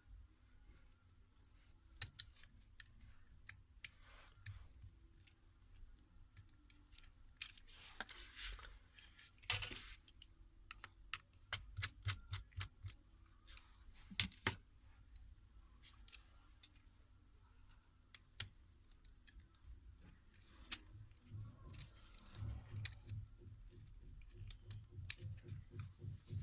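Scattered small clicks and taps of hand tools working on a smartphone's opened internals, with a few short scraping sounds.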